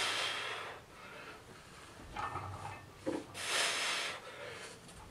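A man breathing out hard twice, about three seconds apart, while lifting a barbell through repetitions.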